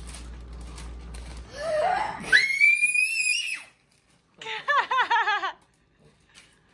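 Plastic bag rustling, then a young boy's excited scream, held for about a second, followed by a burst of about six quick laughing cries.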